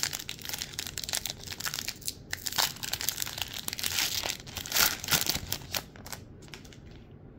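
Foil wrapper of a Panini Select football card pack crinkling and being torn open by hand, a dense crackle that dies down about six seconds in.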